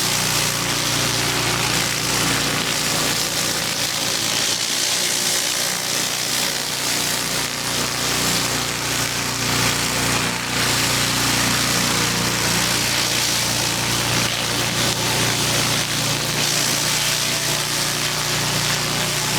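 Gas-engine pressure washer running steadily under load, its engine hum under the constant hiss of high-pressure water spray.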